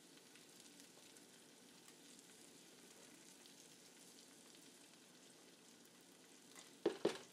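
Faint, low sizzle of cooked-down onions in a hot skillet, close to near silence. Two short clicks of a spoon against the pan come near the end.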